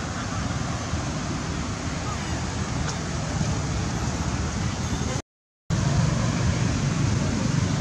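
Wind rumbling and buffeting on the camera's microphone, a steady low noise with no animal calls. The sound drops out completely for about half a second a little over five seconds in, at an edit cut.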